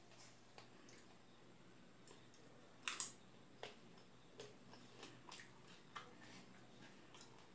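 Crisp panipuri shell being eaten close to the microphone: a sharp double crack about three seconds in as it is bitten, then a few softer scattered crunches of chewing.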